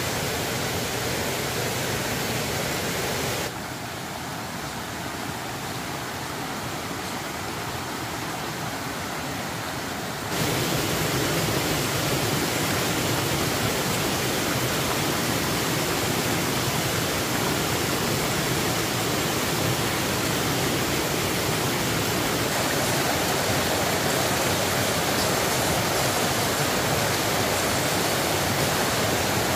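Steady rushing noise of water. It drops abruptly quieter and duller about three and a half seconds in, then jumps back louder about ten seconds in.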